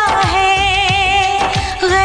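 Hindi film song: a singer holds long wavering notes over a steady drum beat.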